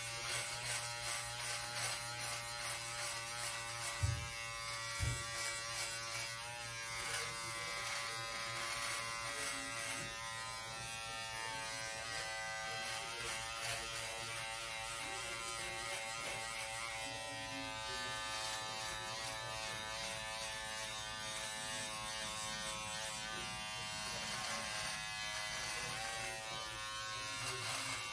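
Braun 6-in-1 electric shaver buzzing steadily as it is run over facial stubble, its pitch shifting a little with each stroke. There are two short low knocks about four and five seconds in.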